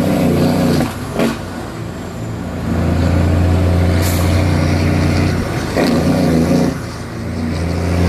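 Truck engine running, heard from inside the cab while driving: a steady low hum that eases off about a second in and again near the end, then picks back up. A brief hiss about four seconds in.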